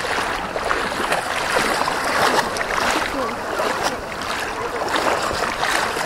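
Shallow sea water sloshing and splashing around legs wading through small waves, a close, continuous watery wash with many small splashes.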